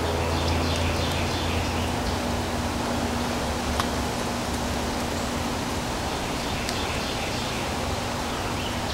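Steady outdoor hiss over rain-soaked trees and yard, with a low rumble that fades after about two seconds. Faint bird chirps come in the first second or so and again near the end, and there is one sharp click about four seconds in.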